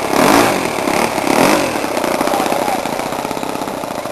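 Small engine of a radio-controlled model P-51 Mustang running on the ground as the plane taxis. Its revs rise and fall twice in the first couple of seconds, then hold steady.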